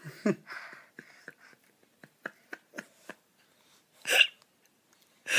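Short, wet mouth clicks and smacks, irregularly spaced, as a toddler chews food, with a brief louder mouth sound about four seconds in.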